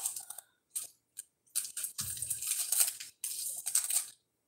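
Rustling and rummaging in several short bursts as hands search through a pile of thrift-store jewelry and its bags for the next piece.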